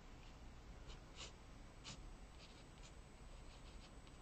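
Faint scratching of an HB graphite pencil sketching on watercolour paper: a series of short strokes.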